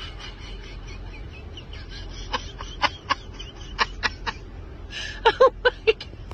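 Stifled laughter from inside the car: short breathy snickers, coming quicker and more voiced about five seconds in, over a low steady hum.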